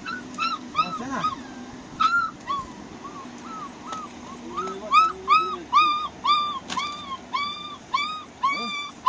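An animal whimpering in short, high, arched cries. They come irregularly at first, then steadily at about two a second and louder from about halfway through.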